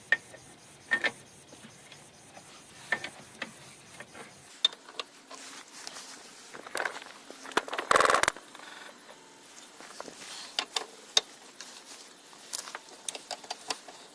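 Handling of metal car tools and the spare-wheel gear: scattered clicks and clanks, with a short metallic rattle about halfway through.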